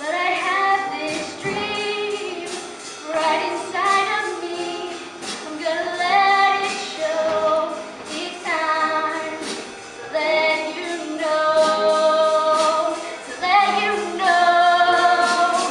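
A group of voices singing together in held notes, with percussion keeping a beat.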